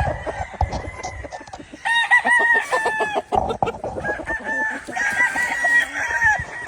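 Gamefowl roosters crowing, one crow about two seconds in and another about five seconds in, with clucking between.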